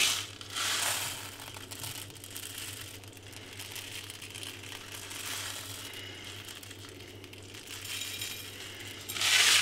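Chocolate sprinkles (milk-chocolate hagelslag) shaken from a cardboard box onto a slice of toast, the box rustling as it is handled. The sound is a little louder in the first second and again just before the end.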